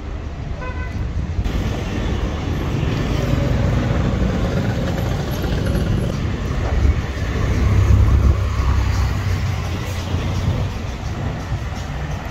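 Road traffic: cars and motor scooters driving past on a city street, one passing loudest about eight seconds in. A short beep, like a horn toot, sounds near the start.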